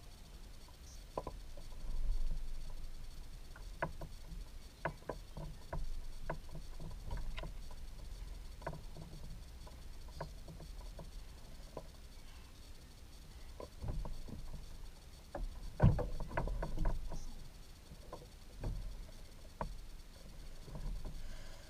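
Irregular taps, clicks and knocks from handling on a kayak as an angler lands a largemouth bass and holds it up, with the loudest knock about sixteen seconds in. A low rumble runs underneath.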